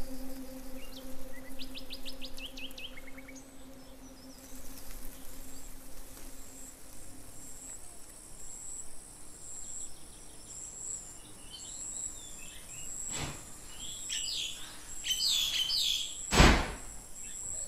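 Birds chirping in short quick bursts, over a faint high pulsing whine, while a low ringing tone fades out over the first several seconds. A light knock about 13 seconds in and a loud thump about 16 seconds in.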